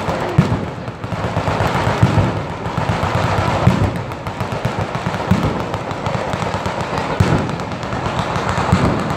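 A batteria, a long chain of ground-level firecrackers and petards, going off in rapid, continuous succession: a dense crackle with heavier bangs every second or two.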